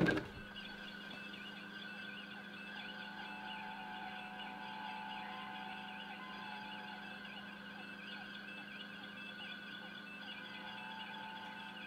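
A steady electronic hum with faint wavering tones above it.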